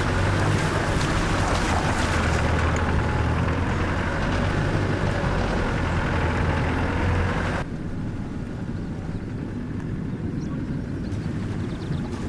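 Off-road vehicle driving along an unsealed lane: a steady low engine drone with rough-road rumble, which drops abruptly to a quieter rumble about eight seconds in.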